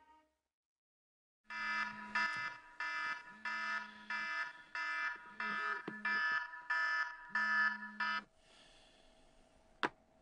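Bedside wake-up alarm going off: an electronic tone beeping about twice a second with a low buzz under parts of it, then cutting off suddenly about eight seconds in as it is switched off. A single click follows near the end.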